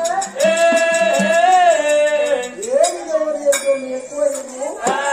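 Oggu Katha folk singing: a voice holds long notes that bend and glide in pitch, with a few sharp percussion strokes about three and five seconds in.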